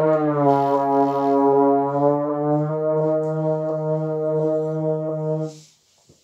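A held brass-like chord of several steady notes, dipping slightly in pitch at first and then steady, that cuts off about five and a half seconds in.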